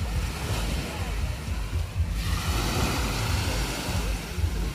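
Small waves washing up on a sandy beach, swelling about two seconds in, with wind buffeting the microphone.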